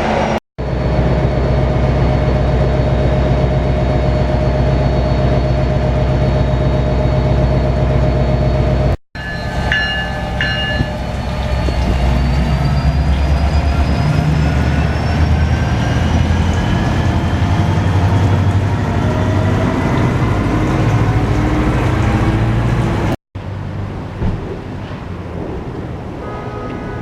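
1991 Yamaha FZR1000's inline-four engine running under way with wind rush, heard in three cut-together stretches. In the middle stretch the engine note climbs slowly as the bike gathers speed, and the last few seconds are quieter.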